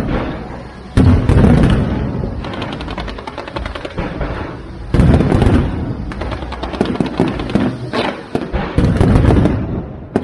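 Aerial fireworks bursting. Big shell bursts hit about a second in, again at about five seconds and near the end, each followed by fast crackling and a low rumble.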